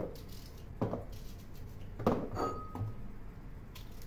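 A small knife cuts through a cucumber held in the hand, and the cut pieces drop into a ceramic bowl. There are three short knocks, and the third is followed by a brief clink.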